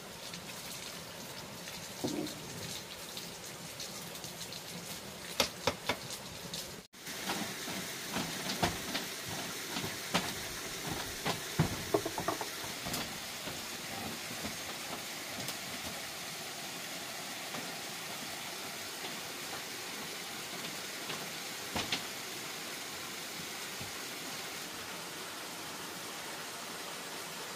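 Steady hiss of water, with scattered sharp knocks and clicks, mostly in the first half and once more later on. The sound cuts out for a moment about seven seconds in.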